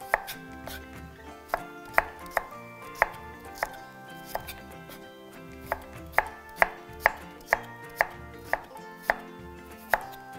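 Chef's knife slicing radishes on a wooden chopping board: about seventeen sharp knocks of the blade on the board at an irregular pace, coming faster in the second half.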